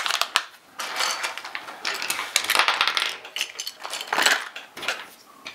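A plastic Lego minifigure blind bag crinkling and rustling as it is torn open, with small hard plastic pieces clicking.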